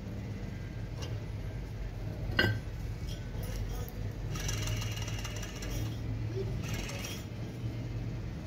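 Metal parts of an alternator clinking and knocking as it is taken apart by hand: a sharp knock about two and a half seconds in, then ringing metal clinks around the middle and again near seven seconds, over a steady low hum.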